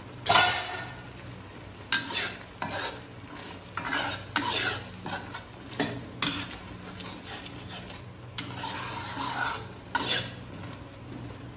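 Metal spatula scraping and knocking against a wok, stirring a thick chili sauce that bubbles and sizzles at the boil. The scrapes come irregularly, every second or two.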